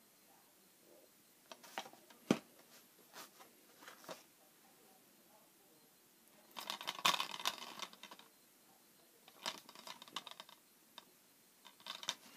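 Plastic DVD cases being handled and swapped: scattered light clicks and taps, with a denser stretch of clicking and rubbing about seven seconds in.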